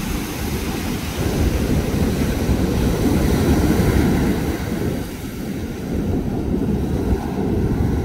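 Small ocean waves breaking and washing up a sandy beach, with wind buffeting the microphone in a loud low rumble. It swells about a second in and eases briefly around five seconds.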